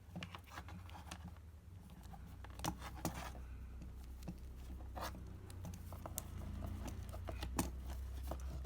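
Power cord of an electric soldering iron being rolled up by hand: irregular small rustles, clicks and scrapes as the cable is handled, over a low steady hum.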